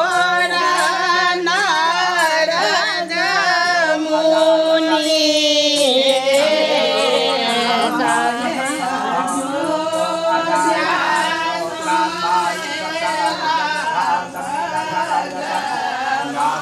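A group of women singing a ritual song together, in long, wavering sung notes.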